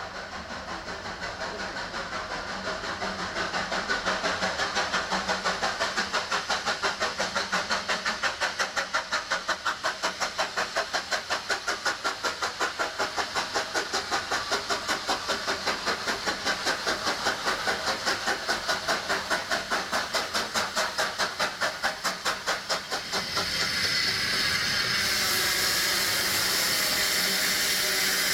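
Narrow-gauge steam tank locomotive Lyd working hard on the approach, its exhaust beating in a fast, even rhythm that grows louder as it nears. About 23 seconds in the beats give way to a loud, steady hiss of steam.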